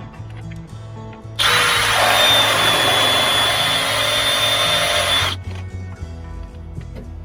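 A handheld power tool runs at a steady speed with a high whine for about four seconds, starting sharply about a second and a half in and cutting off suddenly, over background music with a steady beat.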